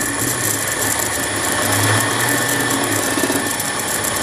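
Drill-press mill spindle, fitted with new angular contact bearings, running steadily at about 1,000 RPM with a carbide end mill. A crackling static from the camera runs over it, not from the mill.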